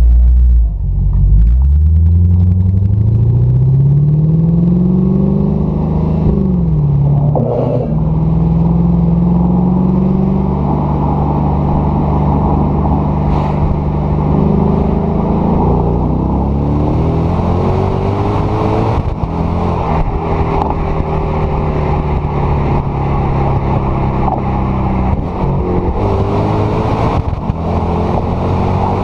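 Lexus IS-F's 5.0-litre naturally aspirated V8 heard right at its stacked twin tailpipes while driving. The exhaust note drops sharply at the start, then climbs for about five seconds, drops again as it shifts up, holds steady, and climbs once more about halfway through before settling into a steady cruise.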